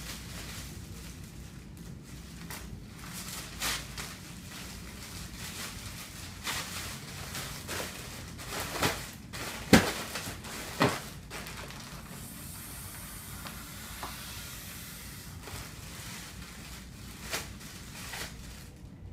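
Thin printed plastic carrier bag crinkling and rustling as it is handled, squeezed and pulled by hand, in irregular sharp crackles, the loudest two about halfway through, a second apart. A steady low hum runs underneath.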